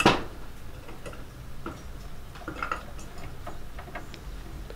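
Metal and plastic parts of a dirt bike carburetor clicking and tapping as it is handled and taken apart, its float bowl coming off. A sharp knock at the very start, then scattered light clicks.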